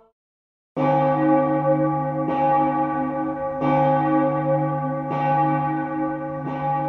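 A large bell tolling slowly. After a short silence it is struck five times, about one and a half seconds apart, each stroke ringing on into the next.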